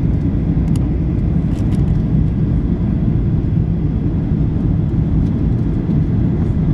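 Steady low rumble of cabin noise inside a Boeing 737-800 on approach, engine and airflow noise heard from a window seat.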